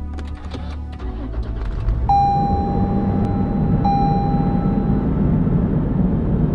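5th-gen Toyota 4Runner running with the defroster blower going, a steady rush that grows louder about a second in and again about two seconds in. Over it a dashboard warning chime sounds as one steady tone held for nearly two seconds, then again for about a second.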